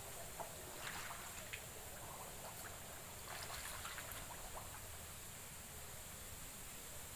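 Shallow water sloshing and splashing softly as someone wades through it, with a few splashier moments about a second in and again between three and four seconds in.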